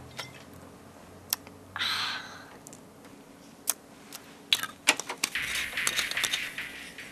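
Glass bottles being handled: a string of light clinks and knocks, with a short rustle about two seconds in and a denser run of clinking and rustling in the last two seconds.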